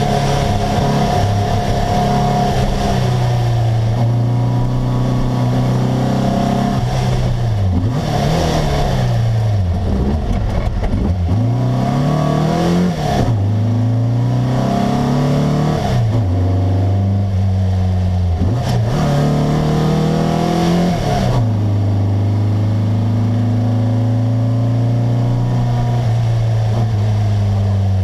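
A VW Beetle rally car's air-cooled flat-four engine, heard from inside the cabin, running hard at high revs. Its pitch drops and climbs again several times, most often in the middle stretch.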